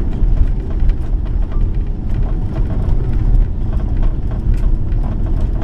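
Airbus A330-200 passenger cabin: a loud, steady low rumble with many quick rattles throughout.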